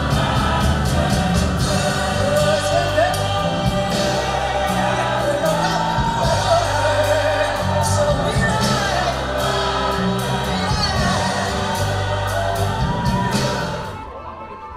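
Music with singing and a strong bass line played over a high-end hi-fi demonstration system. About 14 seconds in it cuts off abruptly and the level drops.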